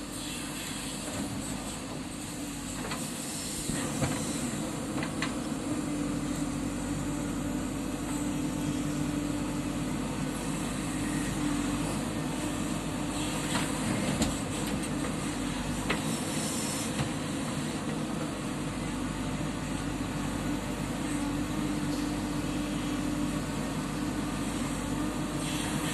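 JCB 3DX backhoe loader's diesel engine running steadily while it works. It grows louder about three and a half seconds in, with a few sharp knocks scattered through.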